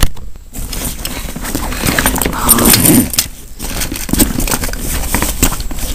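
Plastic shopping bag and toy packaging rustling and crinkling as items are pulled out and handled, with small clicks and knocks. A short pitched sound rises out of it about two and a half seconds in.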